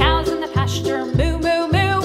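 Background music: an upbeat tune with a low bass note on each beat, a little under two a second, under a sliding, voice-like lead melody.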